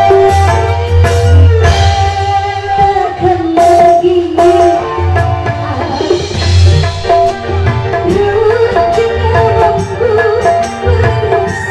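Live band music with drums, bass and a sung or lead melody line.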